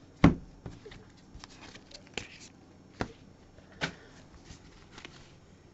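Trading cards and packs handled and set down on a tabletop: a few sharp knocks and taps, the loudest just after the start, then single ones about two, three and four seconds in.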